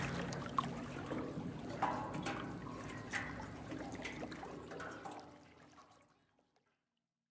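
Faint trickling, water-like sound with small scattered clicks, fading out to silence about six seconds in.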